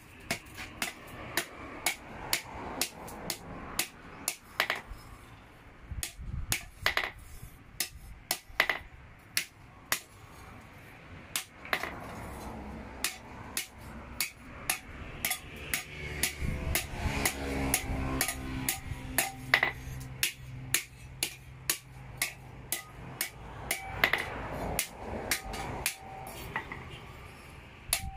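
Hand hammer striking a steel hoe blade on a small stake anvil: a long series of sharp metallic blows, about one to two a second, each with a short ring, as the blade's end is hammered round into a socket.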